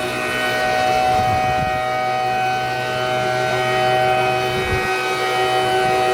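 Outdoor warning siren sounding a steady tone, holding one pitch throughout.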